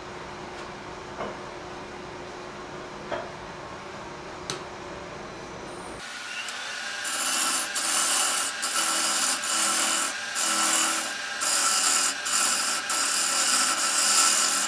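A few faint clicks over low shop noise, then, from about six seconds in, a steel bowl scraper cutting a spinning, very hard pecan bowl on a wood lathe. The tool makes a loud hissing scrape in repeated passes with short breaks between them.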